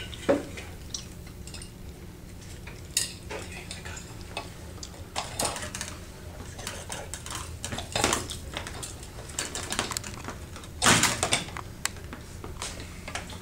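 Small metal hardware clinking, rattling and knocking as it is handled at a junction box, in irregular bursts with the loudest clatter near the end, over a steady low hum.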